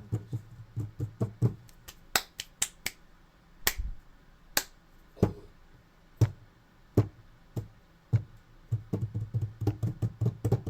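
Finger snaps and hand taps played as a rhythm: quick runs of clicks at the start and near the end, with sparser, sharper single snaps in between.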